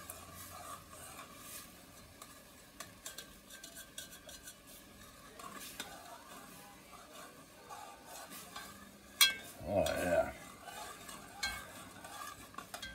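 Metal spoon stirring onions and celery in broth in an enamelled Dutch oven, scraping and clinking against the pot, with a soft sizzle underneath. One sharp clink a little after nine seconds in is the loudest.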